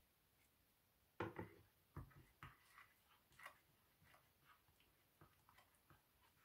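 Plastic spatula stirring a sticky mix of glue, shaving foam and black shoe cream on a glass plate: a knock about a second in, then a run of soft, irregular clicks and taps as it scrapes and folds the mixture.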